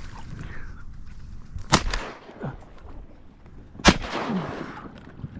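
Shotgun fired twice at flying ducks: two sharp blasts about two seconds apart, the second with a longer fading echo.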